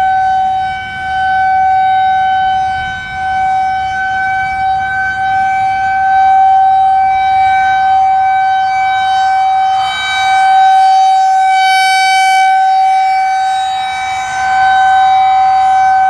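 Federal Signal 2001 outdoor warning siren sounding its steady alert tone for a routine test. It is loud and holds one pitch, with the loudness dipping briefly a few times.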